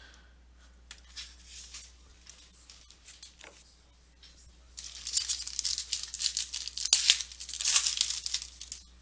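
Foil wrapper of a Panini Crown Royale football trading-card pack being torn open and crinkled by hand. It starts about five seconds in, after a few seconds of light card handling.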